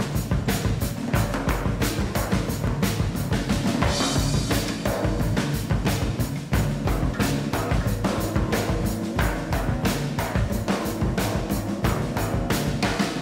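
Music with a steady drum-kit beat.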